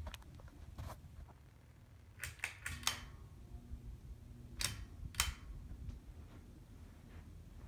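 Harbor Breeze Springfield II ceiling fan running with a faint low hum, over which come sharp mechanical clicks: single ones near the start and about a second in, a quick run of five between two and three seconds in, and two more around five seconds in.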